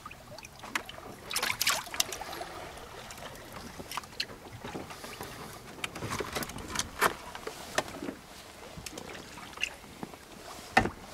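Irregular small clicks, knocks and light splashes of hands and a knife working an Atlantic mackerel in a bucket of water, over a steady wash of sea and wind around the boat, with one sharp, heavier knock near the end.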